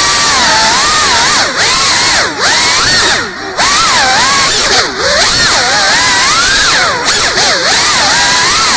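FPV drone's motors and propellers whining, the pitch swinging rapidly up and down with the throttle, with several brief dips where the throttle is cut.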